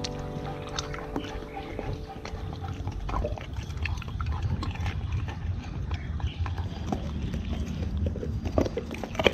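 Dogs chewing stewed meat and gnawing a big bone on concrete: wet smacking and irregular crunching clicks from their jaws and teeth, the sharpest near the end.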